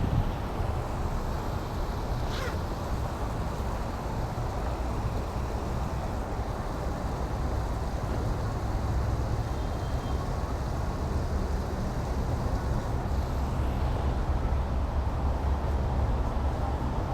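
Wind buffeting the microphone: a steady low, fluctuating rumble, with a faint brief chirp about two seconds in.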